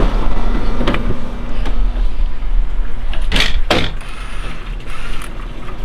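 Camera handling noise as it is carried up out of a boat cabin onto the deck: a few knocks and rustles over a steady low rumble, with two loud swishes about three and a half seconds in.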